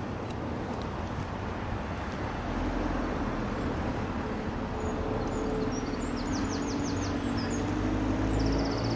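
Outdoor road traffic going by: a steady rush of noise with a low engine rumble that builds from about two and a half seconds in. A small bird chirps in quick runs of high notes around the middle and again near the end.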